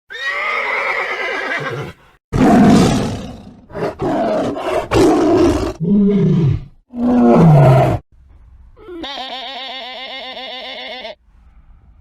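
A run of different animal calls: a pitched call, then several loud rough roar-like calls, and after a short pause a quavering bleat of a goat or sheep about nine seconds in.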